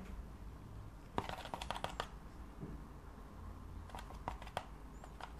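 Quick runs of light clicks and taps, the first about a second in and the second near the end: a paintbrush tapping and scraping against a palette while mixing paint.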